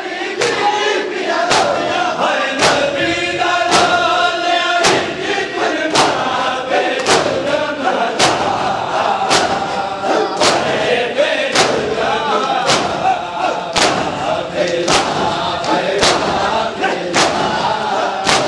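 A crowd of mourners chanting together in unison, punctuated by sharp, unison chest-beating (matam) slaps about once a second.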